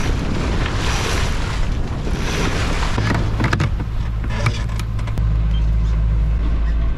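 A yacht under way: wind on the microphone and water rushing past the hull, under a steady low drone of the boat's inboard engine that grows louder about five seconds in.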